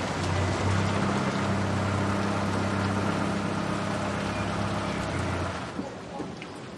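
A car running on the road, with a steady low engine hum under road noise. The hum fades out about five and a half seconds in.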